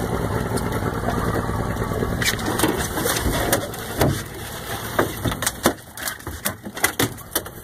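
Outboard motor idling as a steady low rumble, then, from about four seconds in, a quick run of sharp knocks and thuds against the boat's fibreglass deck as a cobia is landed.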